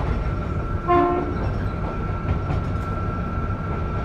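A train horn gives one short blast about a second in, over the steady running rumble of the train on the rails.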